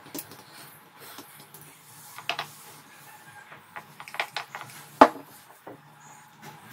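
Scattered light taps and clicks of fingers pressing out oiled dough on a marble countertop, with one sharp knock about five seconds in as a glass oil bottle is set down on the stone.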